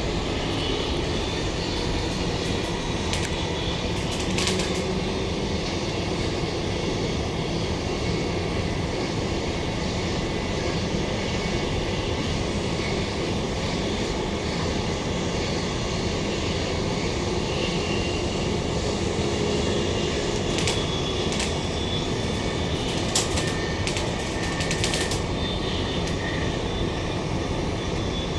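Steady running noise inside a Queensland Rail NGR electric multiple unit (Bombardier-built) travelling at speed: a constant rumble of wheels on rail, with a few brief clicks along the way.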